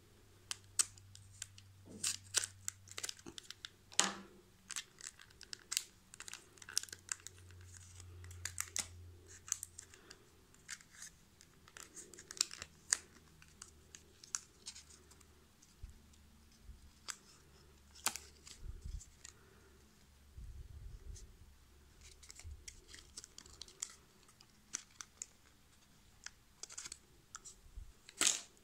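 Irregular sharp little clicks, taps and scratchy rustles of hands working on small parts inside an opened laptop while the memory modules are taken out and handled. The loudest click comes near the end.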